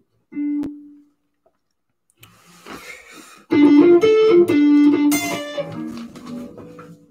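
Electric guitar with a Telecaster-style headstock playing the opening riff of a song. One held note sounds about half a second in, then after a pause a fast run of melodic notes starts about three and a half seconds in, the loudest part, before trailing off.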